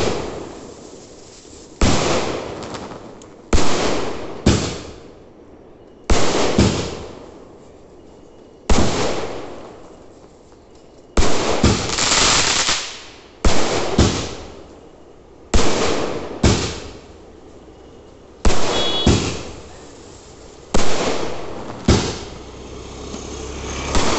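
Aerial fireworks bursting overhead, a sharp bang about every two seconds with some in quick pairs, each bang fading out over a second or so.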